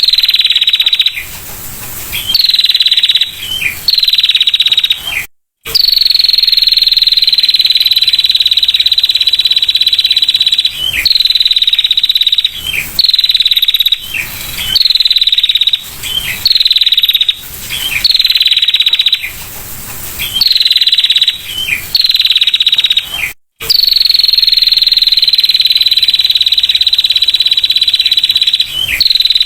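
Female prinia (prenjak) giving its rapid, dry 'ngetir' trill, high-pitched and repeated over and over. Most bouts are short, about a second each, and two long trills run for about five seconds. The sound cuts out completely for an instant twice.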